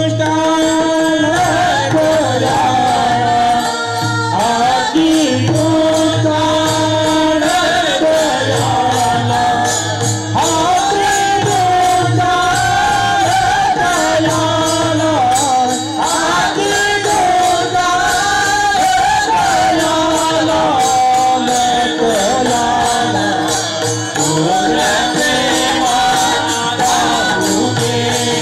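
Two women singing a Marathi Warkari devotional tune (chal) with long, wavering held notes, keeping time on small brass hand cymbals (taal) with steady regular strokes.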